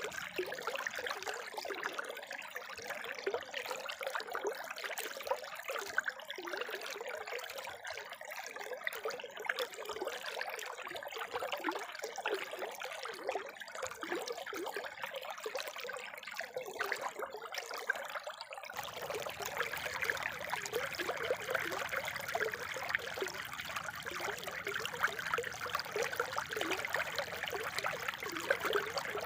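Spring water trickling and splashing steadily. About two-thirds of the way through, the sound changes to a smoother, fuller flow.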